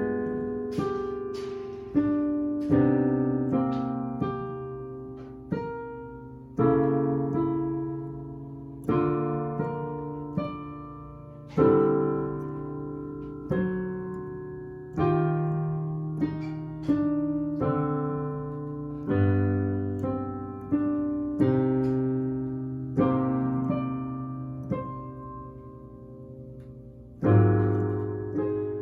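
Solo piano playing slow chords over a bass line, each chord struck and left to fade.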